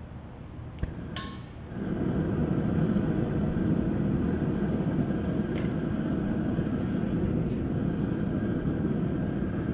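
Propane crawfish burner being lit: a click and a sharp pop about a second in, then the burner flame catches and burns with a steady, loud rushing noise.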